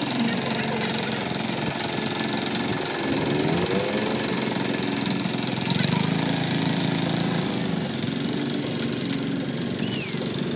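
Kubota walk-behind two-wheel tractor's single-cylinder diesel engine running steadily under load as the tractor drags its blade through loose soil.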